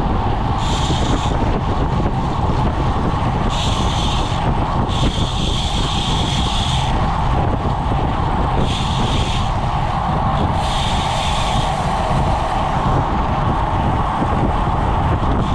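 Steady rush of wind on the microphone, mixed with tyre noise, from a road bike riding in a pack at about 25 mph. A higher hiss comes and goes several times.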